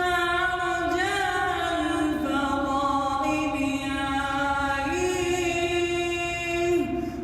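A man's unaccompanied voice singing a religious nasheed in long held notes with ornamented turns. He climbs to a higher sustained note about five seconds in and lets it fall just before the end.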